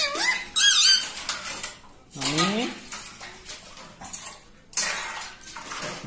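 Rose-ringed parakeet making a few short warbling, rising calls while tapping its beak against a smartphone screen, giving several sharp clicks.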